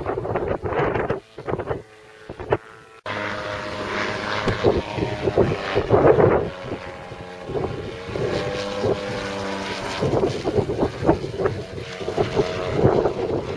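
Autogyro in flight overhead, its engine and propeller droning steadily, with gusts of wind buffeting the microphone. Wind dominates the first few seconds; after a sudden cut about three seconds in, the engine drone comes through clearly.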